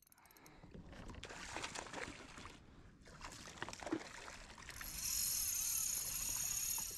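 Water splashing and sloshing around a kayak as a hooked kahawai thrashes and jumps at the surface, followed by a steadier high hiss over the last two seconds.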